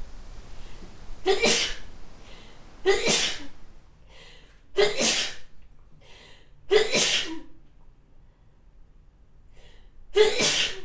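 A woman sneezing hard five times in a row from hay fever, roughly every two seconds, with a longer pause before the last sneeze near the end. Short, fainter breaths come between the sneezes.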